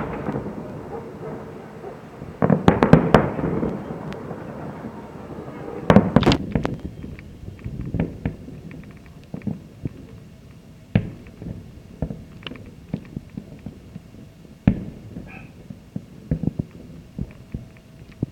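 Fireworks salute: aerial shells bursting in clusters of rapid bangs at the start, about 3 seconds in and about 6 seconds in, then scattered single bangs. Each cluster trails off in an echo.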